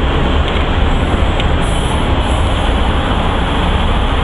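Steady wind rush and low rumble of a Honda CB500F motorcycle riding on the road, heard from the rider's helmet.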